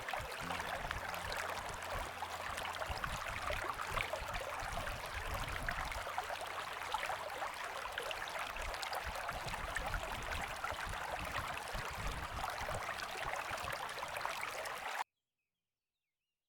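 Stream water flowing and babbling steadily, cutting off suddenly near the end.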